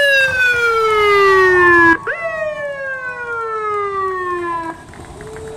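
Fire engine siren sounding two wails, each jumping up sharply in pitch and then sliding slowly down for about two seconds. It stops near the end.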